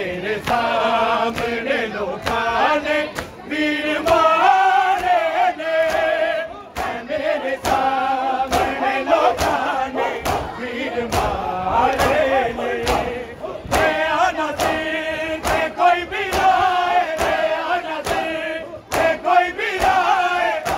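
Shia noha recitation: male voices singing a mourning lament in chorus, with the crowd joining in, over the sharp slaps of matam, open hands beating on bare chests in a steady beat.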